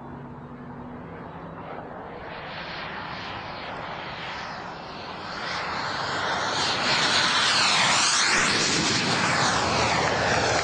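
RC Futura model jet flying past: its engine noise is a steady rush that swells as it approaches. It is loudest about two-thirds of the way through, with a sweeping whoosh as it passes.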